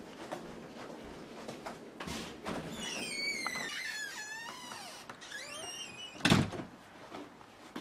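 A door creaking open on its hinges, then banging shut with one sharp knock about six seconds in.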